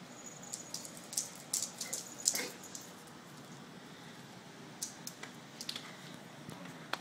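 Two dogs playing on a hard floor: flurries of quick clicks and scuffles from their claws and paws. One busy burst comes in the first couple of seconds and another near the end, over a steady background hiss.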